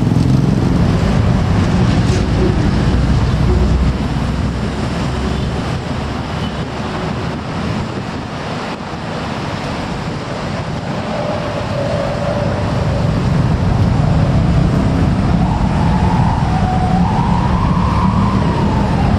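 Motorcycles and a car running across a railway level crossing, loudest in the first few seconds. Over the last several seconds a wavering, siren-like tone rises and falls above the traffic.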